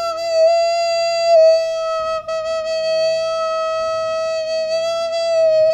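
Maltese bedbut, a small cane reed pipe cupped in the player's hands, blown in one long held note. The pitch steps down slightly about a second and a half in, with a brief catch about two seconds in.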